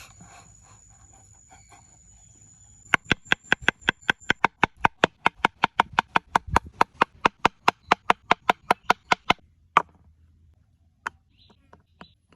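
A fast, even series of sharp knocks or taps, about six a second, running for some six seconds, followed by two single knocks.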